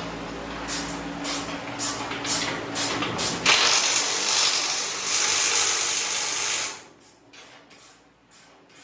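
Ratchet wrench tightening a suspension bolt: separate clicks at first, then about three seconds of louder, fast continuous ratcheting that stops suddenly.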